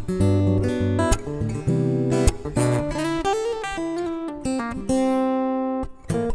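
Takamine PTU200 SP-K dreadnought acoustic-electric guitar being played. It opens with strummed chords, moves into single-note lines that slide in pitch, and a held chord rings out near the end.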